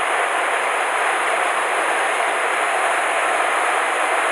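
Mountain stream water rushing over rocks close by, a steady even rush with no breaks.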